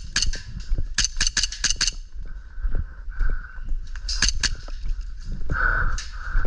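Airsoft guns firing in three quick bursts of sharp clicks, about five shots a second. The longest burst runs for about a second.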